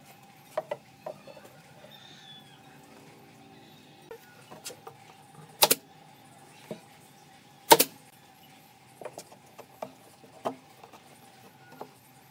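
Pneumatic nail gun firing twice, about two seconds apart, driving nails through pine shelf dividers, with light knocks and clicks of the wooden pieces being positioned in between.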